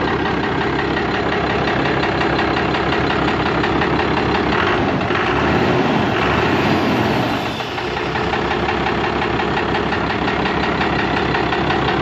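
1998 Cummins 12-valve 5.9 L inline-six turbo diesel idling steadily, with a connecting rod knocking, the sign of a rod bearing damaged when the engine was run low on oil.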